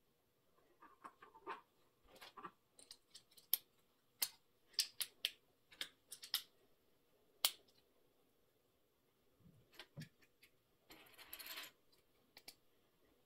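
Plastic LEGO pieces clicking and tapping as they are handled and pressed together, in sharp, irregular clicks, with a brief rustle near the end.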